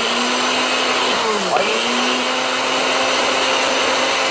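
Countertop blender motor running hard on a load of raw vegetables and apple chunks, a steady high whir. About a second and a half in its pitch dips sharply and recovers, the motor briefly bogging down under the load.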